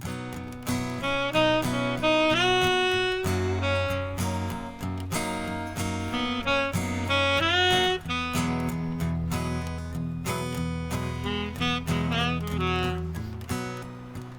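Instrumental music: a melody of held, sliding notes, like a saxophone, over plucked guitar chords and a sustained bass.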